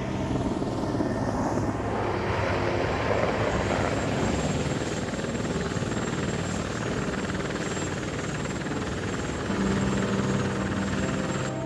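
Helicopter in flight: a steady wash of rotor and engine noise that swells over the first couple of seconds.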